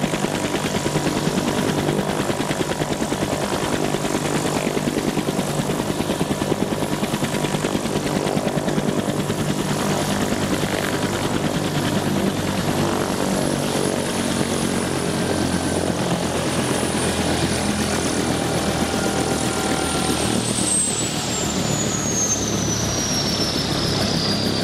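Bell UH-1D Huey's Lycoming T53 turbine and two-blade rotor running on the ground with a steady rapid blade beat. In the second half the high turbine whine falls steadily in pitch as the engine spools down after shutdown.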